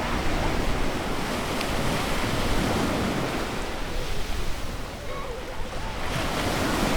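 Ocean surf breaking and washing on a beach: a continuous rushing wash that eases slightly about five seconds in, then builds again as another wave comes in.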